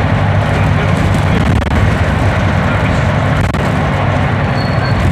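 Leyland double-decker bus engine running steadily as the bus drives along, heard from inside the bus as a deep, even drone.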